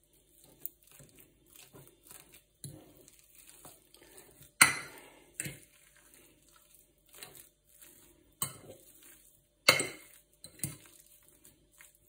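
A fork mashing boiled potatoes in a ceramic baking dish: soft, irregular squishing and scraping, with sharp clinks of the fork against the dish, the loudest about halfway through and two more a few seconds later.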